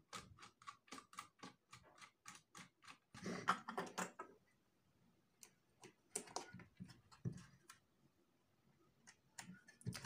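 A screwdriver turning the screw of a plastic wall socket on a wooden board: rapid, even clicking, about four or five clicks a second, for the first three seconds. Then a louder scuffing clunk as the board is handled, followed by a few light knocks.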